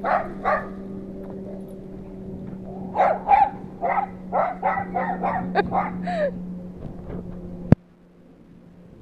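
Dog barking during play: two barks at the start, then a quick run of about a dozen barks over some three seconds. A steady low hum underneath cuts off with a sharp click near the end.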